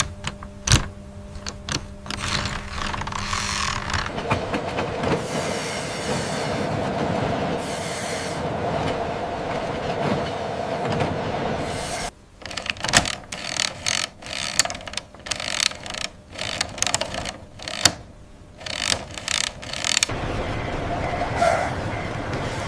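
Mechanical clicking and rattling, with stretches of continuous rumbling noise and a run of sharp separate clicks and knocks in the middle.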